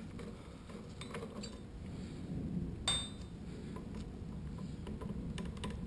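Metal parts of a tap disintegrator's collet holder clicking and clinking softly as its T-bar is unscrewed by hand, with one sharper metallic clink about three seconds in that rings briefly.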